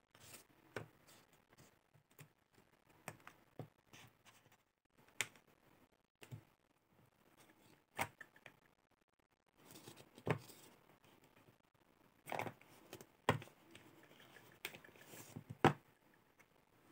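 Small plastic gouache cups being pulled out of a plastic palette tray and set down on a table: irregular light clicks and taps of plastic on plastic, with some scraping between them.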